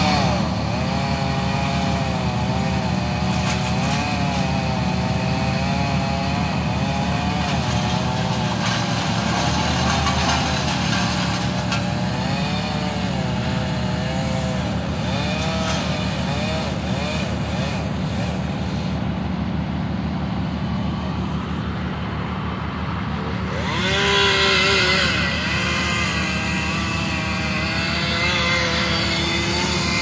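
A chainsaw running in bursts, its speed rising and falling as it cuts, dropping back for a few seconds before revving up again near the end, over the steady running of a bucket truck's engine.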